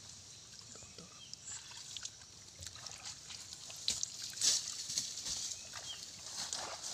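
Water splashing and sloshing as fish thrash in shallow muddy water inside a net. The sharpest splashes come about four to four and a half seconds in, as a hand reaches in to grab a fish.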